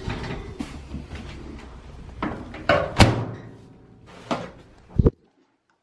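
A run of household knocks and clatters, like things being handled and shut: the sharpest a clack about three seconds in, a low thump near the end, then the sound cuts off.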